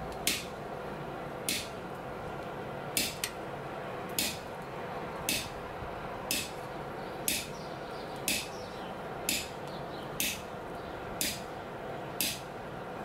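Hand hammer striking a chisel held against hot steel on an anvil: sharp metallic hits about once a second, about a dozen in all, with a quick double hit about three seconds in. A steady hum runs underneath.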